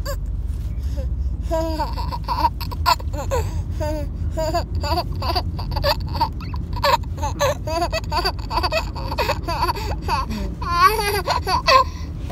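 A baby laughing in short, repeated bursts of giggles, with a louder, higher squeal of laughter near the end, over a steady low rumble.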